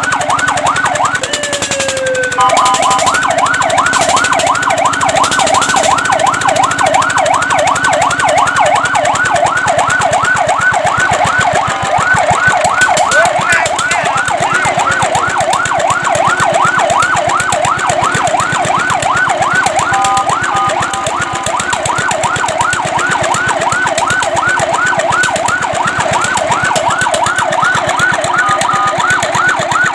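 Fire truck siren in a fast yelp, quick rising-and-falling sweeps about four a second. It is preceded by one slower falling wail, and a brief steady horn-like blast breaks in about two seconds in, around twenty seconds in and near the end.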